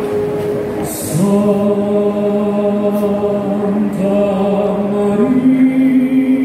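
Slow, chant-like singing that starts about a second in, holding long steady notes and stepping up in pitch a couple of times.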